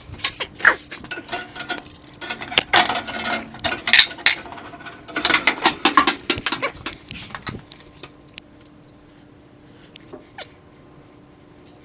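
Metal clinks, knocks and rattling as tools and gas pipe fittings are handled, busy for about seven seconds. After that it goes quieter, with a faint steady hum and a few stray ticks.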